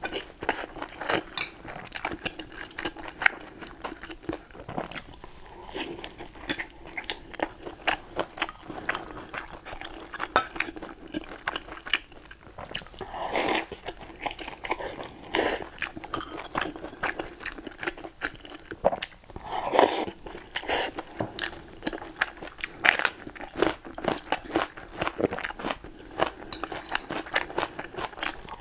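A person chewing and biting pan-fried zucchini pancakes, with frequent sharp crunchy bites and clicks of the mouth.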